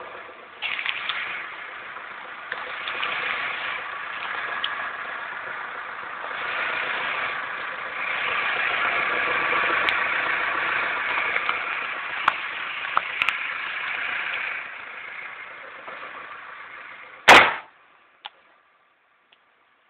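Volkswagen Golf IV 1.6 (105 cv) four-cylinder petrol engine running with the whistle the owner is recording, louder for several seconds in the middle. A single loud thump comes near the end, after which the sound stops.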